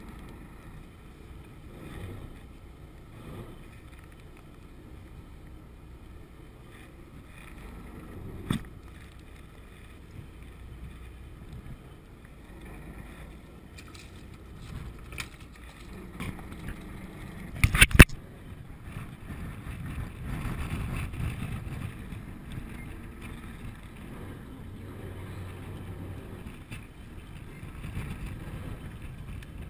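Ambient sound of a small fishing boat at sea in wind and swell: a steady rumble of wind and water. Scattered handling knocks cut through it, the loudest a quick cluster of sharp clicks a little past the middle.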